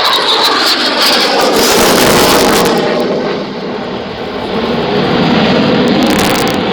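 Loud jet noise from an AIDC F-CK-1 Ching-kuo (IDF) fighter's engines. The rushing roar swells about two seconds in, eases a little, then builds again.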